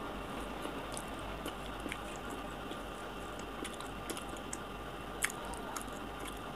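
A person chewing a bite of kora pak sandesh, a firm-cooked Bengali milk sweet, close to the microphone: soft wet mouth sounds with scattered small clicks and smacks.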